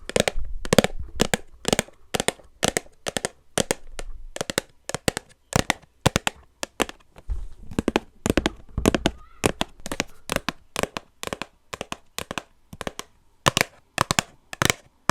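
Rapid, irregular sharp taps, several a second, of fingernails tapping on blind-box packaging.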